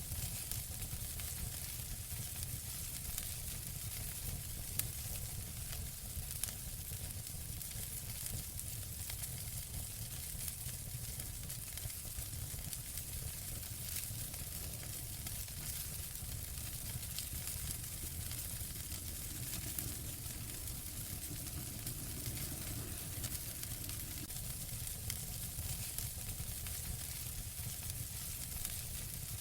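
Wood fire burning in a fireplace: a steady hiss and low rumble with constant small crackles and a few louder pops.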